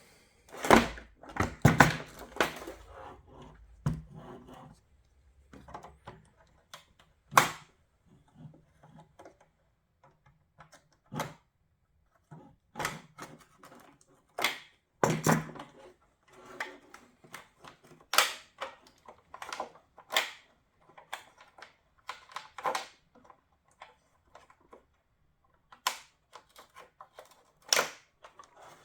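Irregular clicks and knocks of the turn-signal bulb socket being twisted and worked against the headlight housing, a stiff socket that is hard to turn.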